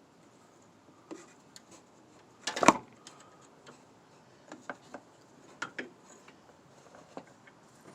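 Metal hand tools clinking and knocking while a 5/8 crow's-foot wrench is fitted to a brake line nut at the master cylinder: one loud clattering knock a little over two seconds in, then scattered lighter clicks and ticks.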